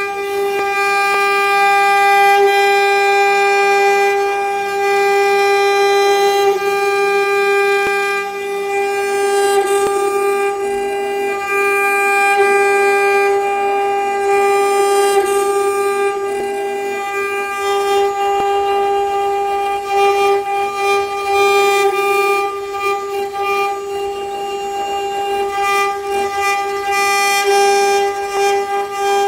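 Spotline CNC router spindle running at high speed as its bit carves a relief into a wooden panel: a steady, loud high-pitched whine, with a rough cutting noise that rises and falls above it as the bit moves through the wood.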